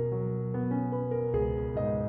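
Background music: a gentle piano melody playing slow, held notes.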